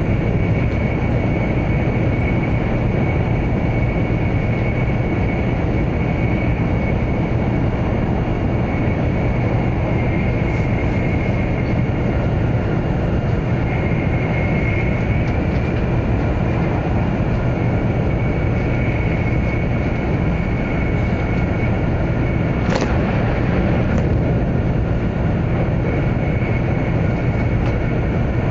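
Running noise of a 100 series Shinkansen train at speed, heard inside the passenger car: a steady low rumble of wheels on rails with a faint high whine over it. A single sharp click sounds late on.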